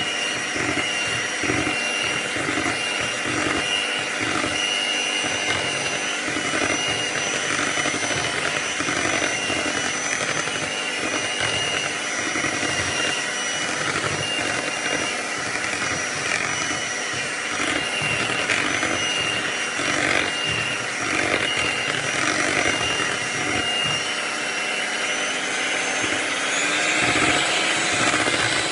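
Electric hand mixer running steadily, its beaters whisking thick cake batter after the flour has gone in. The motor's whine rises a little near the end.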